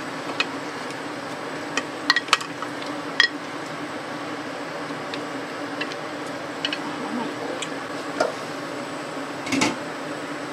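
Cookware and utensils clinking and knocking as food is transferred into a clay pot. There are scattered light clinks, a cluster of them about two seconds in and a louder knock near the end, over a steady low hum.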